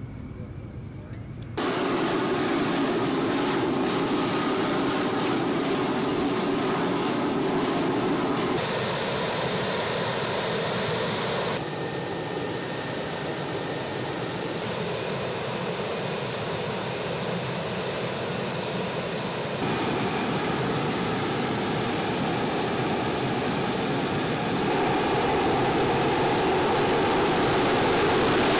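F-16 fighter jet engines running on the ground: a steady rushing noise with a high whine, louder after about a second and a half and changing abruptly every few seconds as the shots change.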